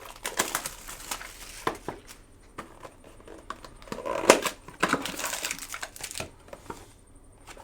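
Plastic and foil wrapping crinkling and tearing as a box of trading cards and its packs are ripped open by hand, in irregular rustling bursts with small clicks, the loudest a little after four seconds.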